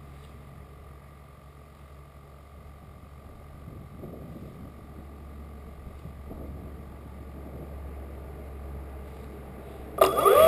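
Faint steady hum while the plane sits still, then near the end the E-flite Apprentice's brushless electric motor spins up its propeller with a sudden loud whine.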